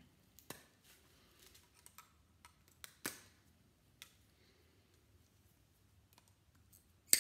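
Snippers cutting copper winding wire off a small electric motor's steel stator: a few faint sharp snips and clicks of metal, the loudest and sharpest near the end.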